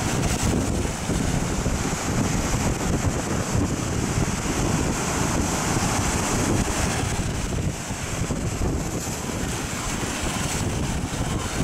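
Storm surf breaking and churning in rough sea, with wind buffeting the microphone as a low, steady rumble.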